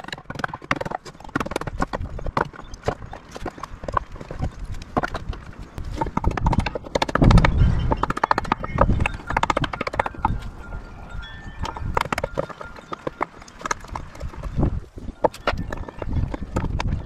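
Irregular knocking and clattering of carpentry work on wood, many sharp knocks coming unevenly, loudest about halfway through.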